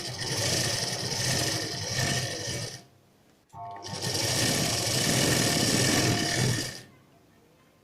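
Sewing machine stitching in two runs of about three seconds each with a short stop between, sewing a cord inside a folded bias strip to make corded piping.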